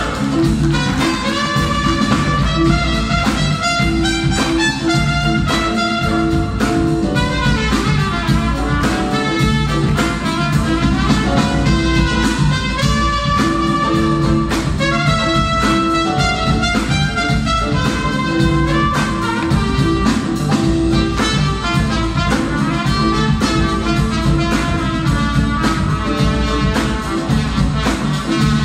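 Live band playing an instrumental passage of a song, with no singing, heard from the audience of a concert hall.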